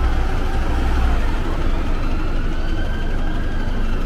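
City street traffic: a steady low rumble of passing cars, buses and trucks. A faint high tone rises and falls in the middle.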